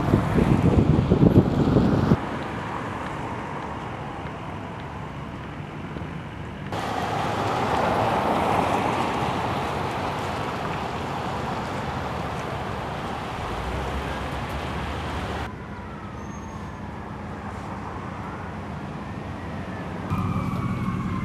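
Wind gusting hard on the microphone for the first two seconds, then a steady rush of storm wind. In the last few seconds emergency-vehicle sirens wail, their pitch rising and falling over a low vehicle hum.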